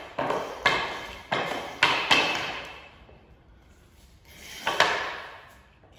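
Hockey stick strikes: a quick run of about five sharp clacks in the first two seconds, then a single louder hit about five seconds in. Each one rings on with echo in the bare, metal-roofed garage.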